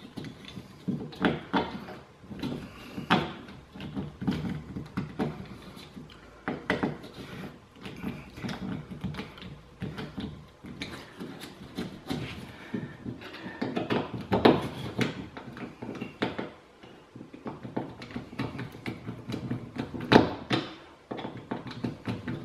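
Screws being turned in by hand with a manual screwdriver through plasterboard into a timber backing block: a string of irregular short clicks and scrapes with the turns, a couple of louder knocks in the second half.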